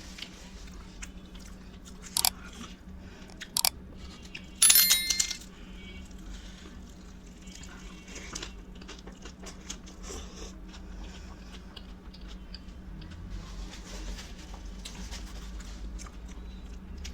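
A person chewing food close to the microphone, with a few sharp loud crunches about two, three and a half, and five seconds in, over a steady low hum.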